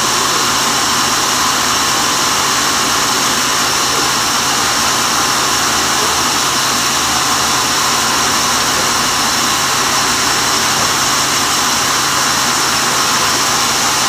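Large sawmill band saw running with an even, unbroken noise over a steady low hum.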